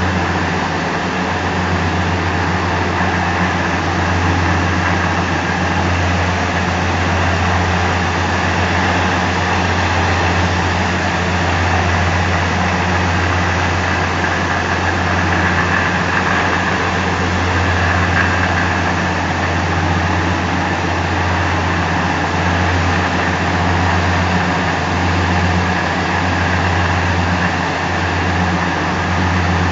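Stone flour mill (atta chakki) plant running steadily: belt-driven stone grinding mills and their electric motors making a constant low hum under a dense mechanical rush.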